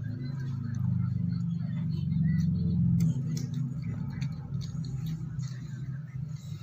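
A motor engine running with a steady low hum, louder from about one to three seconds in and then dropping back, with a few light clicks of a spoon on a plastic plate.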